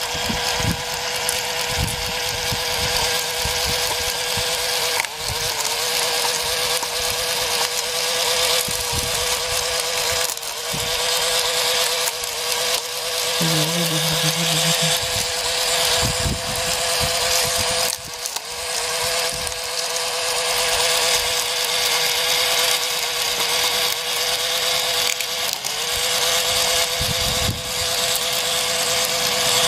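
Small electric motor of a homemade cardboard toy thresher running with a steady high whine while dry stalks are fed into it; its pitch sags briefly a few times.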